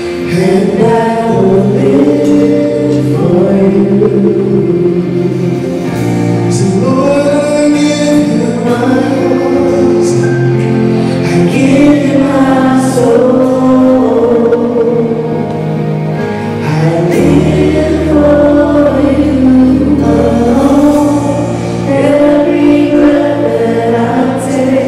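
Gospel music: a church choir singing over sustained instrumental chords.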